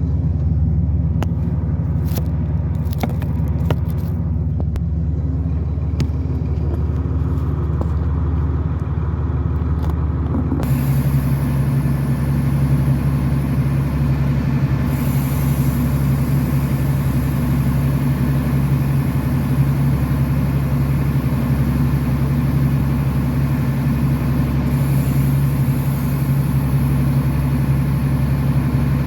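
A fishing boat's engine running steadily. About ten seconds in, its note steps up and a hiss of rushing water or wind joins it, as the boat picks up speed.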